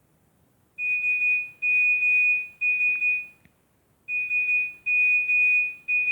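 Nokia 105 (RM-908) mobile phone playing one of its built-in ringtones through its small speaker: two groups of three long beeps on one high pitch, with a short pause between the groups.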